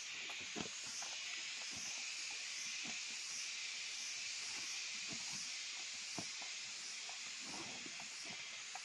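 A steady high hiss of forest insects, with faint scattered rustles and soft knocks of footsteps in dry leaf litter.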